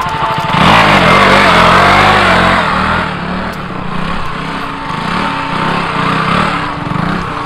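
Motorcycle engine revving hard for about two seconds, then running at lower, wavering revs with repeated blips of the throttle as the bike is balanced on one wheel in a stunt.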